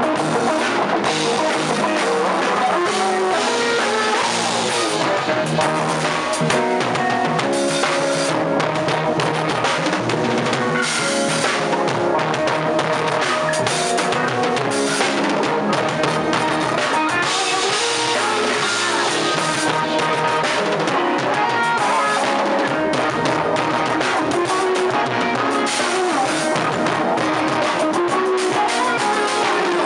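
A band playing: a drum kit with cymbals driving the beat under electric bass and organ chords.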